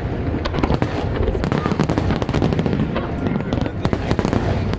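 Aerial fireworks going off in quick succession, a dense run of sharp cracks and bangs over a continuous low rumble of booms, with crowd voices underneath.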